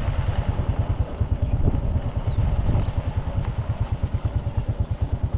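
An engine running at a low, even putter of about nine beats a second.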